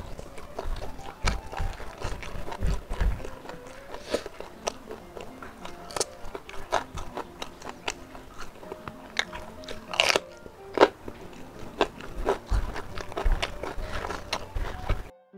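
Close-up mouth sounds of eating by hand: wet chewing, lip smacks and crunching of a mouthful of spicy smoked beef (sei sapi) and rice. Faint background music runs underneath, and the sound cuts out for a moment near the end.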